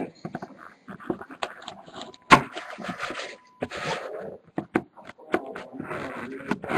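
A box of trading cards being opened by hand: packaging rustling and scraping, with many sharp clicks and taps and a few louder crinkling bursts, the loudest about two seconds in.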